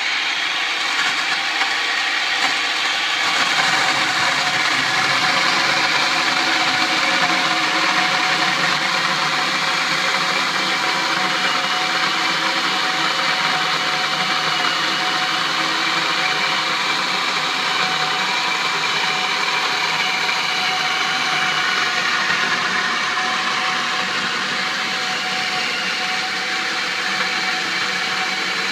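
Skil circular saw fitted with a Prazi Beam Cutter chain-saw attachment, its motor running steadily under load as the chain cuts lengthwise through a thick timber beam.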